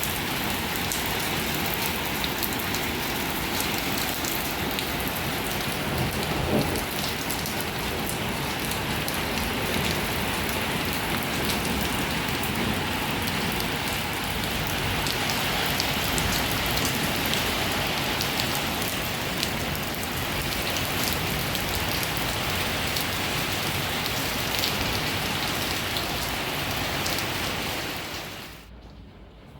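Steady heavy rain falling, with many fine individual drop hits through the steady wash. It cuts off suddenly shortly before the end.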